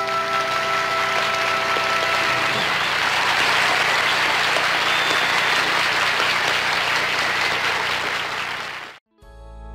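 Studio audience applauding over the last held notes of the song, which fade out about two seconds in. The applause cuts off suddenly near the end.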